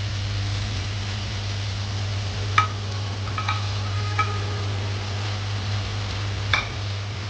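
Metal cooking utensil clinking against a pan while noodles are stirred, about five short ringing clinks spread through, over a steady low hum and hiss.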